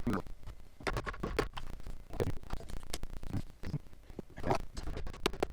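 Irregular metal clicks and scrapes from hand tools working a case splitter bolted to a Honda XL600R engine's crankcase, drawing the case halves apart.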